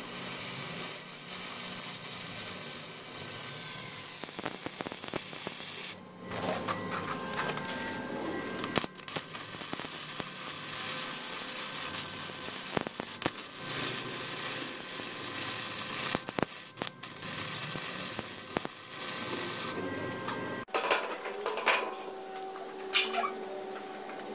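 Electric arc welding on a steel gate post: a steady crackling sizzle from the arc with a few short breaks. It stops near the end, giving way to a few light metallic clinks.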